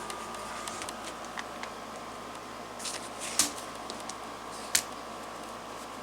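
Handling of a CO2 pellet pistol's magazine: a few small sharp clicks and taps of metal and plastic parts, the loudest about three and a half and nearly five seconds in, over a steady faint hum.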